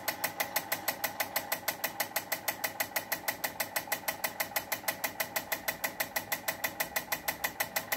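Mechanical wristwatch movement, caseback off, ticking steadily as its escapement beats, about five to six sharp ticks a second.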